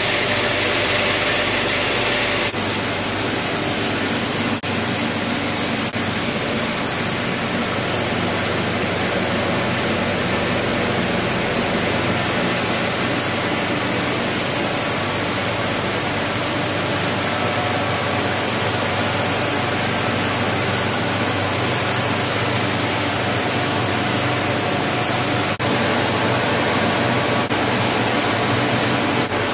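Lithium battery recycling machinery running: a loud, steady rushing noise of motors and processing equipment. The sound changes abruptly about two and a half seconds in and again near the end.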